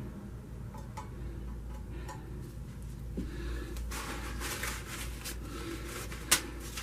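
Faint handling noise: light clicks and rustling over a low steady hum, with a sharper click near the end.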